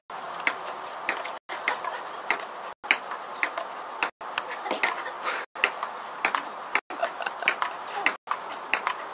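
Table-tennis ball ticking sharply on the table, a few quick clicks at a time, over a steady hiss. The sound drops out for an instant about every second and a half.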